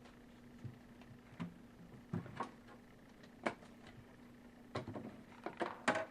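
Light, irregular clicks and rattles of pencils and small objects being knocked about in a desk drawer as a cat rummages through it, coming quicker near the end, over a faint steady electrical hum.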